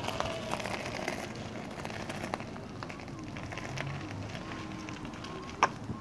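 Electric unicycle's tyre rolling over gravel and then paving stones: a steady gritty crackle of small clicks, with one sharp knock near the end.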